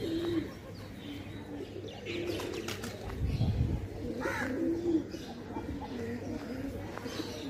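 Feral pigeons cooing, a string of low, repeated coos, with a few higher bird chirps and a brief low rumble about halfway through.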